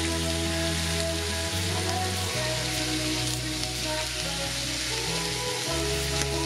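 Beef slices sizzling on a BRUNO electric grill plate, a steady hiss of frying, under instrumental background music with sustained chords and a changing bass line.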